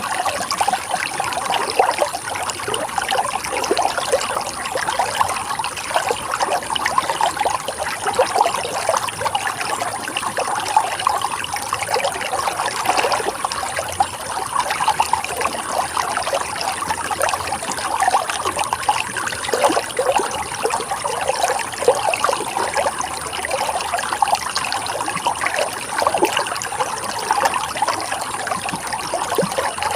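Running water of a stream, a steady trickling and burbling made of many small splashes with no pauses.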